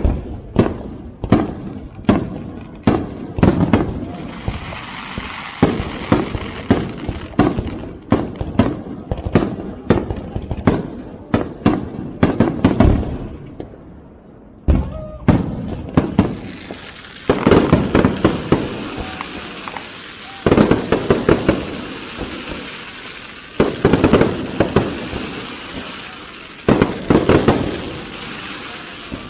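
Aerial fireworks display: a quick run of shell bursts banging about twice a second, a short lull about halfway through, then bunches of bursts with dense crackling.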